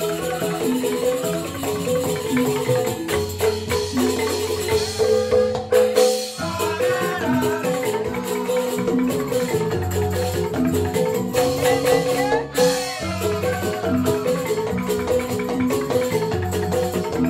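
Joged bumbung gamelan music: bamboo xylophones playing fast, repeating interlocking patterns over a low pulse, with rattling percussion. The ensemble breaks off briefly twice, about six seconds in and again near twelve and a half seconds.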